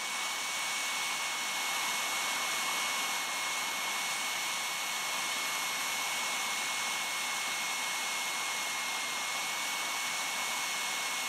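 Jet Central Rabbit 100-newton model turbine engine running on the ground at about 100,000 RPM: a steady rush with a high whine that wavers slightly in pitch. The engine's speed is hunting up and down, part of the surging under investigation.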